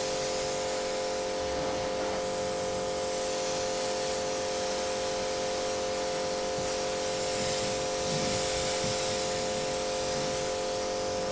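Pressure washer running: a steady motor hum under the continuous hiss of the spray, the hiss swelling and fading as the spray sweeps.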